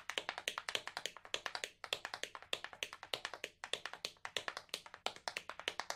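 Tap shoes clicking on a stage floor in a quick tap-dance routine, several sharp taps a second with a couple of brief pauses.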